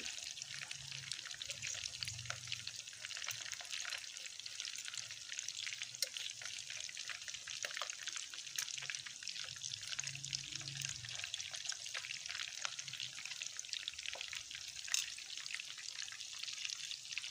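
Gola kababs (minced-meat kebabs) deep-frying in hot oil in a frying pan: a steady crackling sizzle. A few sharp clicks come as a slotted turner flips them, the clearest about six seconds in and again near fifteen seconds.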